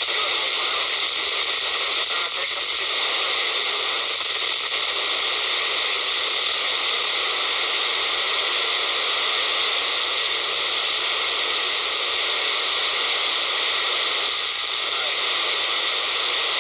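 Handheld scanner's speaker hissing with steady FM static, squelch open on 27.780 MHz (UK FM CB channel 19), with no clear voice coming through.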